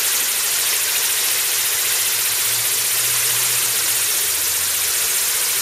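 Firework fountain spraying sparks with a steady, loud hiss.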